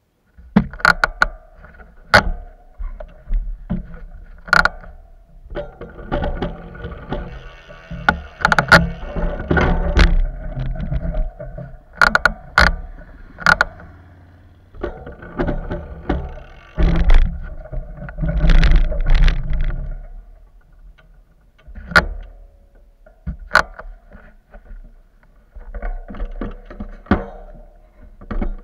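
Close handling noise on a bike-mounted camera while the bicycle is stopped: irregular sharp clicks and knocks mixed with bouts of rubbing and scraping and a low rumble, quieter for a few seconds at a time between them.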